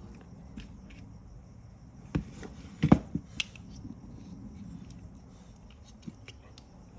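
Scattered clicks and knocks of small metal and plastic seatbelt-retractor parts and a tool being handled, the loudest knocks about two and three seconds in.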